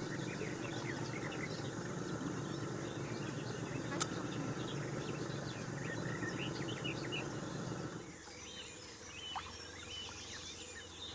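Many birds singing and calling at once, a dense scatter of short chirps and whistles, over a low steady rumble that drops away about eight seconds in. A single sharp click about four seconds in.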